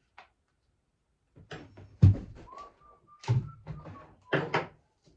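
A string of sharp knocks and thuds, the heaviest about two seconds in and just after three seconds, with a faint thin whistle-like tone between them.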